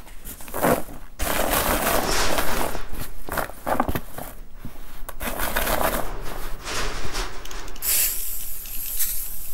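Loose steel wood screws rattling and shuffling inside a cotton cloth as it is bunched and rubbed to work WD-40 over them. A short hiss of the WD-40 aerosol comes near the end.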